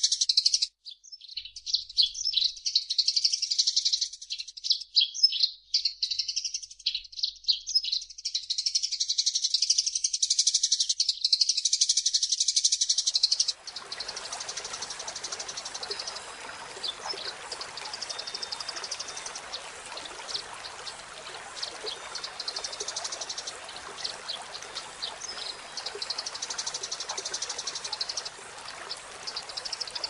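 Eurasian tree sparrows chirping in a dense, rapid chatter. About halfway through, the recording changes to quieter, sparser chirps over a steady hiss.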